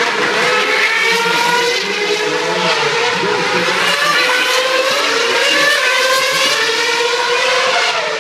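Formula One car engine running at high revs, its pitch climbing and dropping back several times.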